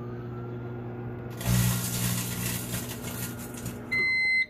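Microwave oven running with a steady hum. A foil-lined chip bag inside crackles loudly for about two seconds. Near the end the microwave gives a high, steady end-of-cycle beep.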